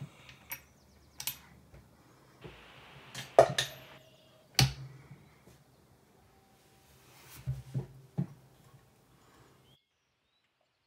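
A 1977 Jolly Bank mechanical coin bank being worked by hand: a series of sharp clicks and knocks from its arm and lever mechanism and the coin, loudest about three and a half and four and a half seconds in. The sounds stop shortly before the end.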